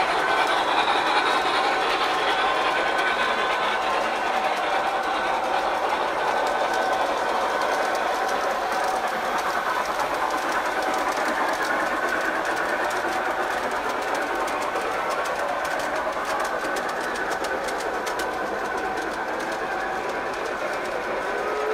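Model train running along its track: a steady motor whir and wheel rumble on the rails, with fine rapid clicking through the middle stretch.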